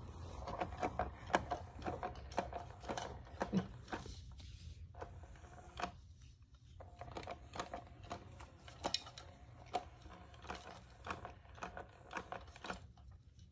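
Kittens batting and knocking plastic cat toys: irregular light clicks, taps and rattles over a faint steady whir.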